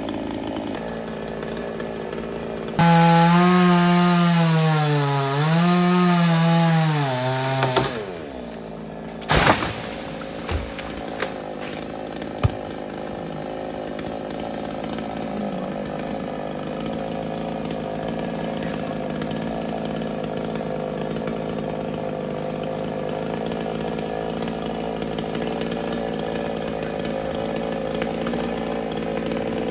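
Chainsaw cutting at high revs, its pitch sagging twice as it bogs under load, then winding down about eight seconds in. A few sharp knocks follow, then a steadier, quieter engine drone.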